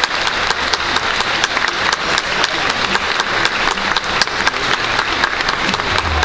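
Stadium crowd applauding: many hands clapping steadily.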